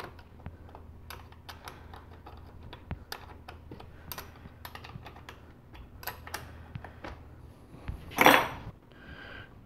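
Small ratchet wrench clicking in irregular runs as it tightens the nut on a car's negative battery terminal clamp. About eight seconds in there is one brief, louder rush of noise.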